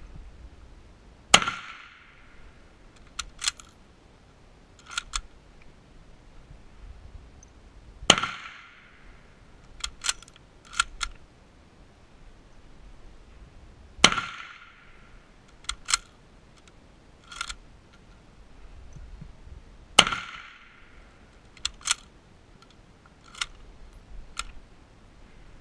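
Mosin-Nagant bolt-action rifle fired four times, about six seconds apart, each sharp shot echoing briefly under the range's roof. After each shot the bolt is worked, two or three quick metallic clacks.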